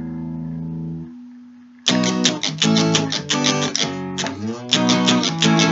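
Electric guitar freestyle played with a Fender triangle pick. A held chord rings and fades for nearly two seconds, then quick picked notes and strums run on, with a brief break near four seconds in.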